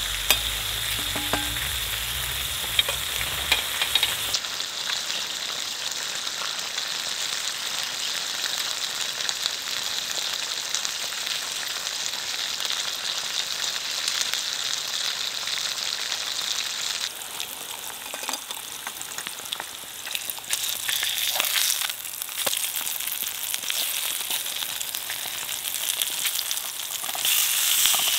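Bacon frying in a small camping frying pan: a steady sizzle with fine crackling spits of fat. The sizzle changes abruptly twice, about four seconds in and again after about seventeen.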